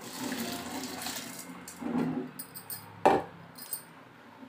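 Washed rice poured from a steel bowl into a steel pot of hot thinned buttermilk: a soft rushing splash, then a single sharp knock about three seconds in.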